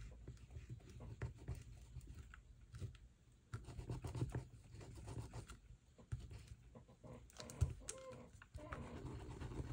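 A hard, dry paint stick scratching and rubbing over a stencil, heard as a run of irregular light scrapes and ticks. A sharper tap comes about three quarters of the way through.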